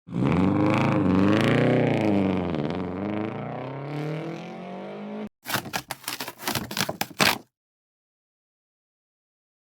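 An engine revving, its pitch rising and falling several times and then settling lower, cut off abruptly after about five seconds; then a quick run of clattering knocks for about two seconds.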